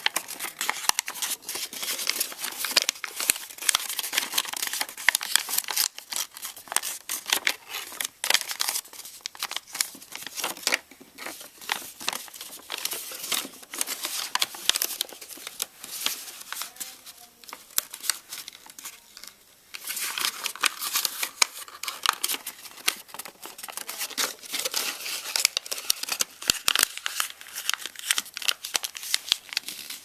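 A sheet of origami paper crinkling and rustling as it is folded and creased by hand, in dense crackles, with a quieter stretch a little past halfway.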